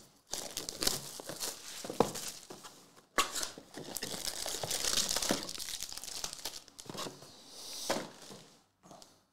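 Shrink wrap and cardboard tearing as a trading-card hobby box is opened, then foil-wrapped card packs crinkling as they are pulled out of it. There is a sharp tear about three seconds in and a dense stretch of crinkling after it.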